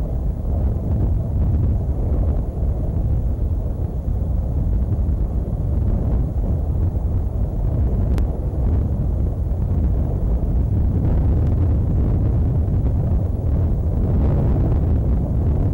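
Steady low rumbling wind noise on an outdoor nest-camera microphone. A single faint click comes about eight seconds in.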